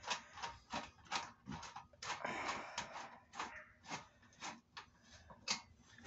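Screwdriver turning a screw into a kerosene heater's sheet-metal housing: a string of irregular small clicks with some scraping around the middle.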